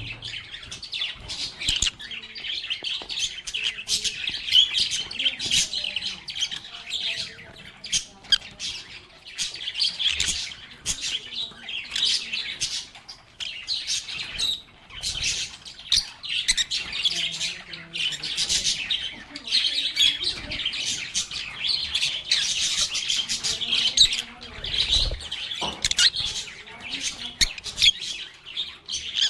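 A group of lovebirds chattering continuously, with a dense stream of short, sharp chirps and squawks.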